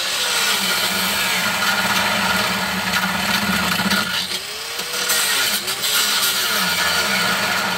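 Handheld angle grinder cutting into a car's steel K-frame (front subframe): a steady, loud grinding as the disc bites into the metal. About halfway through the note sags and recovers a couple of times as the load changes.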